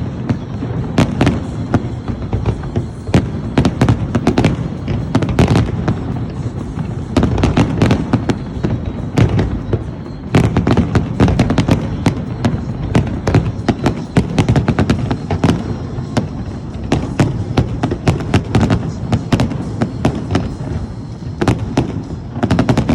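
Aerial fireworks going off in quick, irregular succession: many sharp cracks and deep booms over a continuous rumble.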